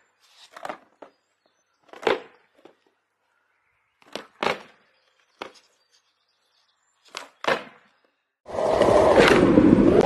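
Skateboard deck popping and landing on a mat during flatground tricks: a series of sharp wooden clacks, some in quick pairs, with silence between. About eight and a half seconds in, a loud steady noisy din takes over.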